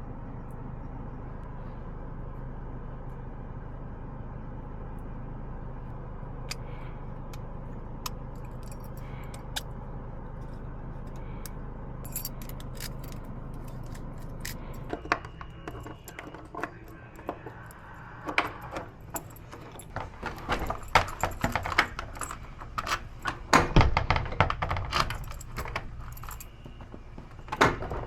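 Keys and small metal lock parts clicking and jingling in rapid, irregular bursts, starting about halfway through and getting busier toward the end. A steady low hum runs under the first half.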